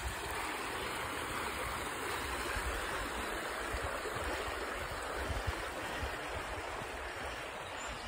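Shallow river flowing, a steady rushing of water.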